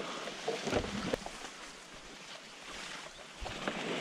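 Leaves and stems of dense thimbleberry undergrowth rustling and swishing against the hiker and the camera as he pushes through the brush, with a few light knocks from stepping and branches.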